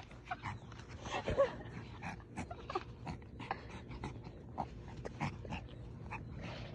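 A pet dog making short vocal sounds while it plays, among many quick clicks and scuffs. The loudest sound comes about a second in.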